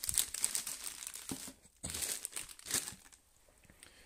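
Clear plastic bag around a headlight projector shroud crinkling as it is handled, in two spells of about a second each, the second ending about three seconds in.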